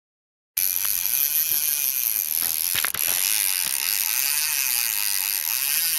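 Fly reel's drag screaming as a hooked fish runs and strips line off the reel; it starts suddenly about half a second in and holds steady.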